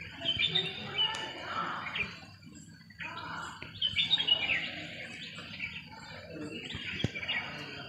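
Small birds chirping outdoors: short, high calls and quick twitters that come in clusters with brief pauses between them.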